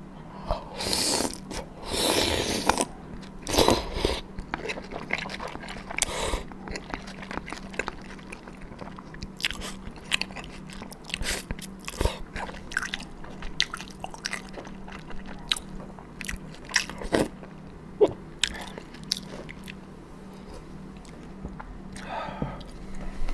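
Close-miked eating of dumpling soup. A spoonful is slurped in the first few seconds, then there is a long stretch of chewing with many short wet mouth clicks and smacks, and another slurp near the end.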